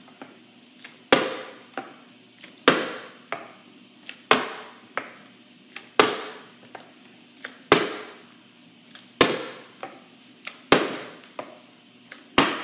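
A partly filled plastic water bottle is flipped again and again onto a stone kitchen countertop. There are eight sharp thuds about every second and a half, each followed by a lighter knock.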